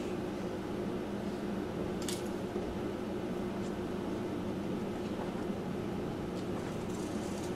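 Room tone: a steady low hum with a few faint clicks, one about two seconds in.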